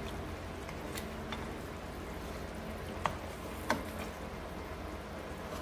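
Marinated chicken pieces sautéing in a stainless steel frying pan with a steady low sizzle, while a spatula stirs them and clicks against the pan a few times. The raw chicken is being cooked until it is no longer pink.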